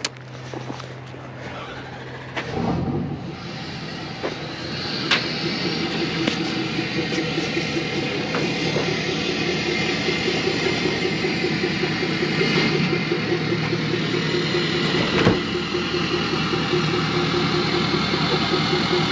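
A vehicle engine starts about two and a half seconds in and keeps running steadily, growing gradually louder, with a couple of sharp knocks along the way.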